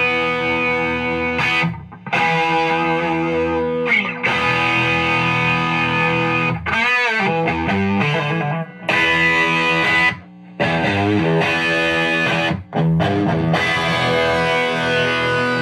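Electric guitar played through a cranked 100-watt valve amp running two 6CA7 power tubes at normal line voltage and normal bias, into a 4x12 cabinet with Greenback speakers: heavily distorted sustained chords and riffs. There are a few short breaks, and a bending, wavering passage about seven seconds in.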